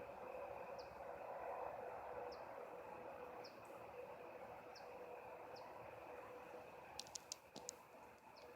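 Faint steady outdoor hum with a held low tone, over which a small bird gives a short high chirp about once a second. A few sharp clicks come in quick succession about seven seconds in.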